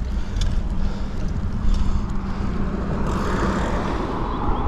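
Road bike tyres rolling over a wet path with steady wind rumble on the chest-mounted microphone; about three seconds in, a hiss of tyres through standing water grows louder.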